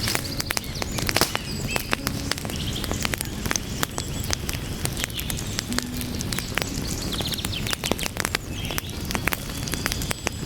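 Wood fire burning, with frequent sharp crackles and pops of burning logs over a steady low rumble of flame.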